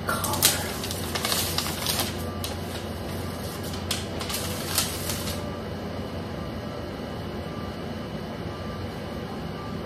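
Packaging rustling and crinkling with a few sharper crackles as a felt hat is handled and lifted out of its box, stopping about five seconds in. After that only a steady low room hum remains.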